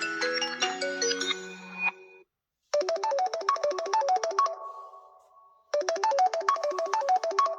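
Samsung Galaxy A54 ringtones playing. One melody of short pitched notes ends about two seconds in. After a brief gap another ringtone starts, a quick repeating phrase of bright notes that plays, rings out and then plays again.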